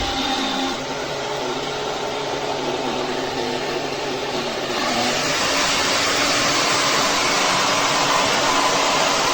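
Wavytalk 1875 W ionic hair dryer running with a steady rushing whoosh of air and a faint motor whine. About halfway through the sound grows louder and brighter.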